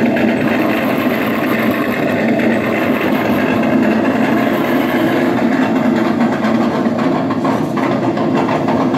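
Engine sound from an RC car's built-in audio system, played through its onboard speaker and running steadily.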